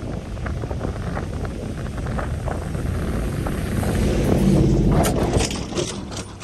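Ram Power Wagon pickup's HEMI V8, towing a trailer, driving past on soft beach sand: the engine swells to its loudest as the truck passes close about four seconds in, with a spell of sharp clicking and hiss as the wheels go by, then fades. Wind buffets the microphone throughout.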